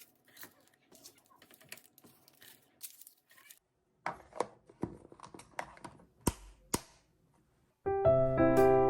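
Faint handling noises in a small room: rustling and light clicks, then a run of louder sharp clicks and knocks, with tearing or crinkling sounds among them. A short gap follows, then piano music starts near the end.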